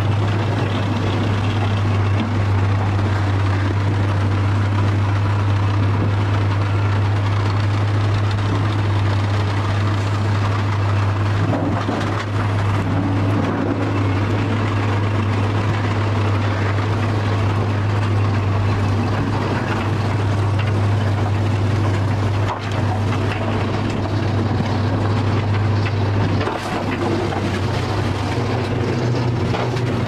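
Sawmill machinery running: a steady low hum with a broad mechanical rumble, changing slightly near the end.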